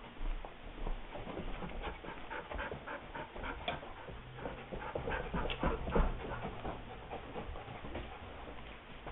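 A dog panting with quick, evenly repeated breaths.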